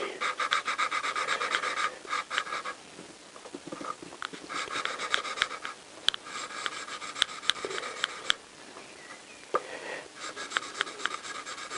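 Valve being hand-lapped into its steel seat on a Honda CBR1000F cylinder head: a suction-cup lapping stick spun back and forth between the palms grinds the valve face against the seat with fine grinding paste. It makes a gritty, scratchy rasping in several bursts of rapid strokes with short pauses between.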